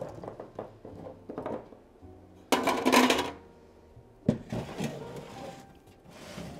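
Oil paint tubes and art supplies clicking and knocking as they are packed into a red art box. About two and a half seconds in comes a loud rattling clatter from the box. A little after four seconds there is a thump as it is set down in a wooden cabinet, followed by a few light knocks. Soft background music plays underneath.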